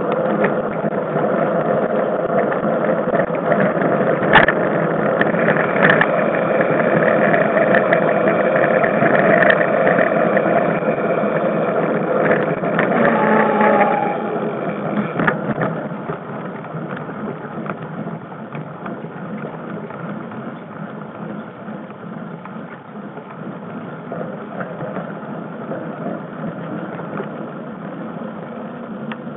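Mountain bike ridden fast over a dirt forest trail, heard from an on-board camera: a steady rumble and rattle of tyres and bike over the ground, with a few sharp knocks from bumps. It drops noticeably quieter about halfway through.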